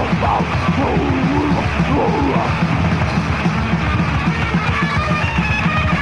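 Death metal band playing live, in a dense, loud wall of distorted guitar and full band, with sliding, wavering notes over the first two seconds or so and higher held notes near the end.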